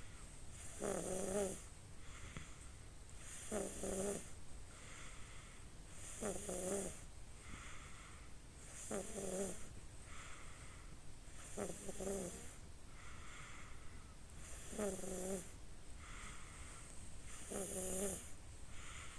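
Slow, regular snoring of a sleeper in deep sleep: about seven pitched snores, one every two and a half to three seconds, each with a hissy breath, and softer breaths between them.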